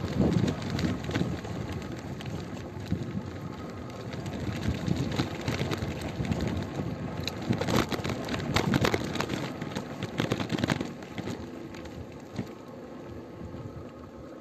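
Rustling and crackling wind and handling noise on a handheld phone microphone, with many irregular clicks, loudest right at the start and again from about eight to eleven seconds in, then fading.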